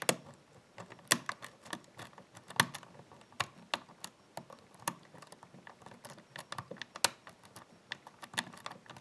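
Lock pick and tension tool clicking in a five-pin Yale pin-tumbler cylinder: irregular sharp clicks, a few a second and some louder than others, as security pins are lifted and the core makes many little turns through a false set.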